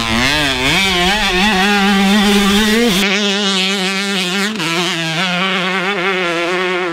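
A 2005 Honda CR125's single-cylinder two-stroke engine revving as the bike is ridden, its pitch rising and falling with the throttle. About three seconds in, the deep rumble underneath drops out suddenly, leaving the engine's note.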